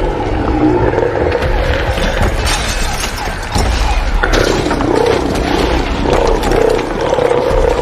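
Horror sound-design audio of a fictional giant creature: a loud droning, siren-like tone that wavers, dipping and rising about halfway through, over a heavy rumble and crackling noise.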